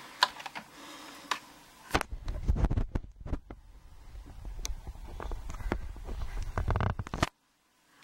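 Handling noise as a large steel padlock is moved about and set down on a plastic pinning tray: scattered clicks and knocks over low bumping. The sound cuts off abruptly near the end.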